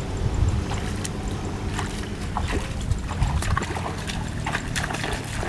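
Single-cylinder Kubota diesel engine of a walk-behind hand tractor running steadily, with footsteps squelching and splashing through flooded rice-field mud over it from about two seconds in.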